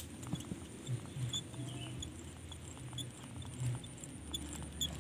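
Baitcasting reel being handled and cranked, giving small irregular clicks over soft low handling thumps.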